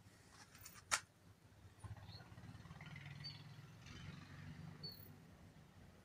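Quiet rural outdoor background: a few faint, short, high bird chirps over a faint low hum, with a single sharp click about a second in.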